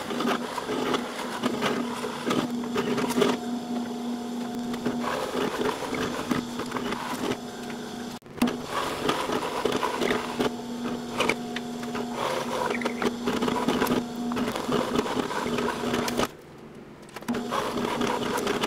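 Drill press running, its bit boring into a wood block: a steady motor hum under the noise of the bit cutting. The sound dips briefly about eight seconds in and again near the end.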